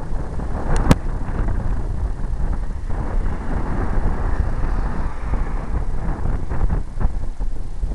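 Wind buffeting the microphone in a steady low rumble, with one sharp click about a second in.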